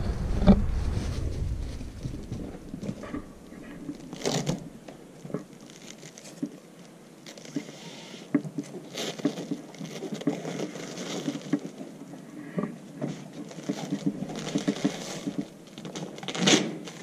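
Gloved hands rubbing and pressing a black fabric strip along the top edge of a projection screen: scattered rustling and scratching, with brief louder brushes about four seconds in and near the end.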